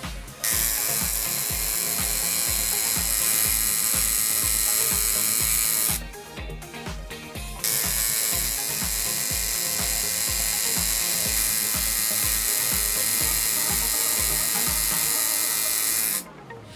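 Electric tattoo machine buzzing in two long runs, cutting out for a couple of seconds around six seconds in, over background electronic music with a steady thumping beat.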